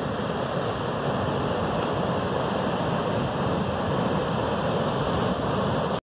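Ocean surf breaking and washing up a sandy beach, a steady, unbroken noise of waves.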